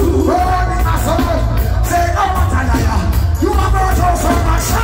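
A live reggae band playing loudly, with heavy bass, drums and cymbals, while a singer holds sung lines.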